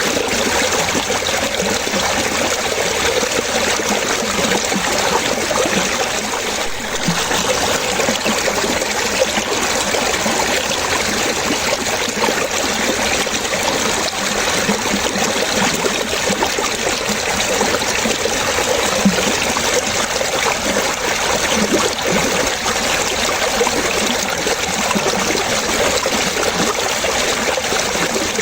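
Running water trickling and splashing steadily, with small irregular bubbling blips.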